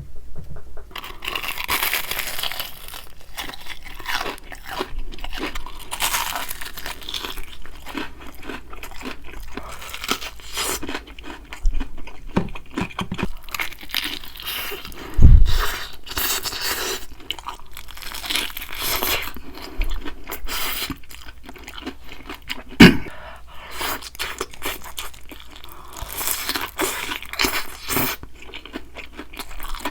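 Close-miked chewing and crunching of crisp spicy chicken, with many irregular crackling bites. There are two louder thumps, about halfway through and again a little later.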